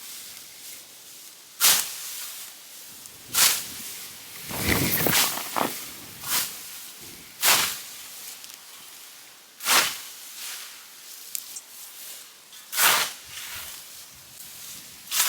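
Scythe blade swishing through standing hay grass in repeated cutting strokes, about seven sweeps, one every two seconds or so.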